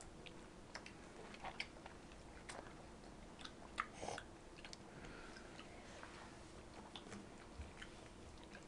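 Quiet chewing of fresh strawberries, with scattered small clicks and taps at the table.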